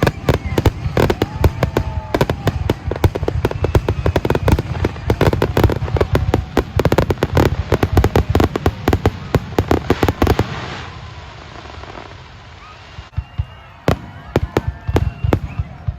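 Fireworks finale: a dense, rapid barrage of overlapping bangs and crackles that dies down about ten seconds in, leaving only a few scattered bangs near the end.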